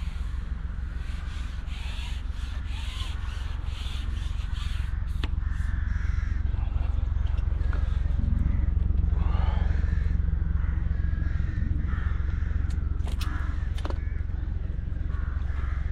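Birds calling: a quick run of repeated calls over the first few seconds, then scattered calls, over a steady low rumble.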